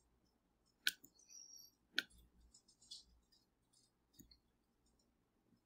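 Faint computer mouse clicks while sliders are dragged: one sharp click about a second in and another at two seconds, then a few softer ticks, with near silence between.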